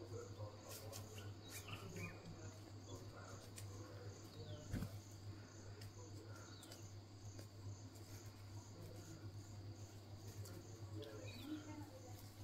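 Faint outdoor insect chirping in a steady, even pulse, over a low steady hum. There is one short thump about five seconds in.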